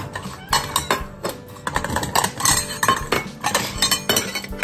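Metal cat food bowls holding dry kibble clinking and clattering in a quick, irregular run of sharp knocks.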